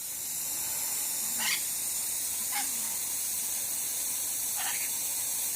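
Steady hiss of a water shower spray running, with three short lorikeet chirps over it.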